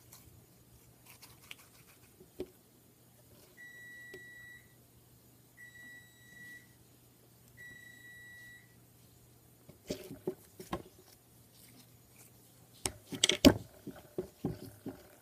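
An electronic device beeps three times, steady high tones each about a second long and two seconds apart. Then comes a run of sharp clicks and pops from slime being squeezed and handled, loudest a little before the end.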